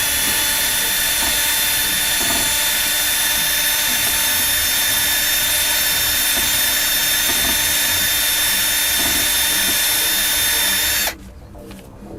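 Power drill running steadily for about eleven seconds, then stopping suddenly near the end, with a thin high whine throughout; it is spinning a .410 gun-bore brush to clean a brake caliper's guide-pin bore.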